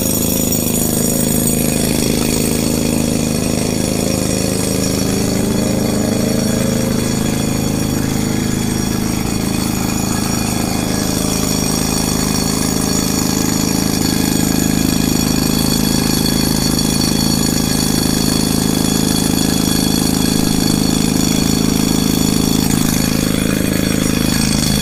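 A construction-site engine running steadily and loudly, with a slight wavering in pitch during the first several seconds.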